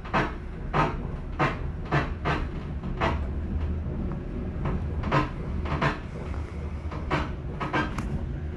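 Train wheels clacking over rail joints as the train rolls along, a sharp clack a little over once a second at uneven spacing, over a steady low rumble of the train running.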